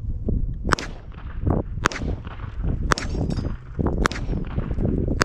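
Gunshots fired in a slow, steady string: five sharp shots about a second apart, each with a short ringing tail.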